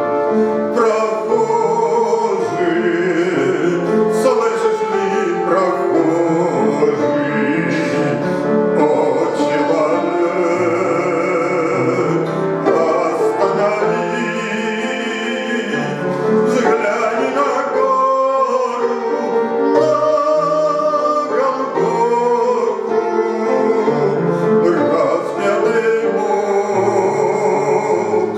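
A man singing a Christian hymn with vibrato over instrumental accompaniment.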